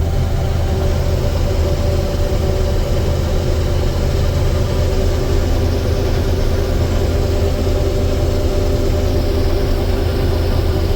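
Combine harvester running steadily while harvesting soybeans, heard from inside the cab: an unbroken engine and machine drone with a strong low hum and several steady tones above it.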